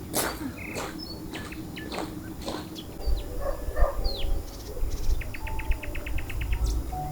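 Small birds chirping, with one rapid trill of about a dozen notes near the end. Sharp clicks in the first couple of seconds, and a low rumble from about three seconds in.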